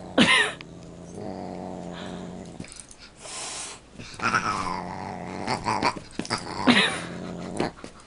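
A dog and a Siamese cat sparring with each other: low growling, sharp cries that slide down in pitch just after the start and again in the second half, and a short hiss near the middle.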